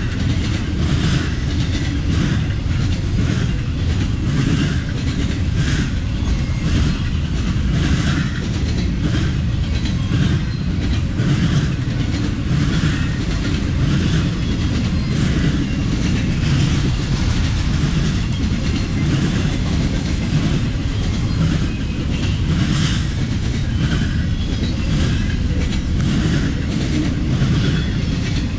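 Freight train rolling past: a steady low rumble of the cars, with the wheels clacking again and again over the track.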